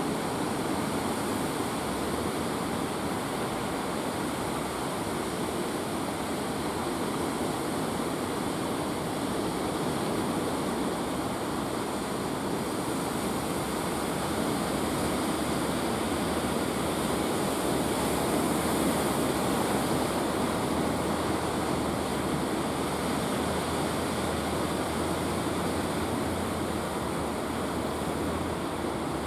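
Sea surf, a steady wash of breaking waves, with a low steady hum underneath that stops near the end.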